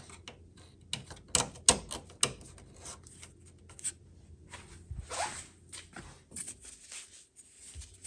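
Sheet-metal U-nut being slid and pressed onto the edge of a steel bracket tab: irregular metal clicks and short scrapes. A few sharp clicks stand out between one and two and a half seconds in.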